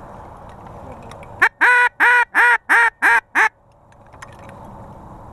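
A quick run of six loud duck quacks, about three a second, over steady background noise.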